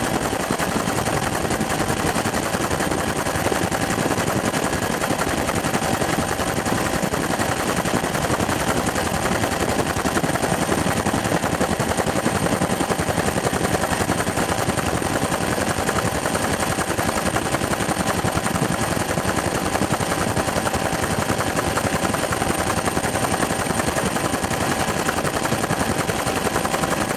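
Helicopter heard from inside the cabin in steady flight: a constant rush of rotor and engine noise made of rapid, even beats, with a thin steady whine over it.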